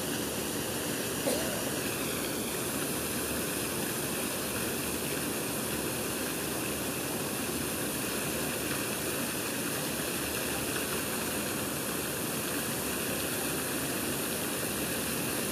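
Steady, even hiss of outdoor background noise, with one brief click about a second in.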